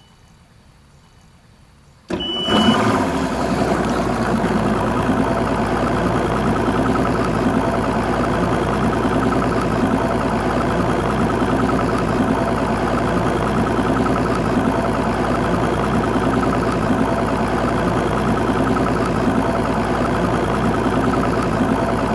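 A short high beep, then a Mercury OptiMax Pro XS two-stroke outboard motor starts about two seconds in and runs steadily at idle.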